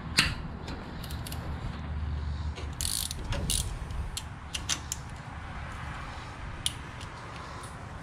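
Ratchet wrench clicking in short spells, with scattered sharp metal clicks, as bolts on a tractor's hydraulic valve plate are loosened.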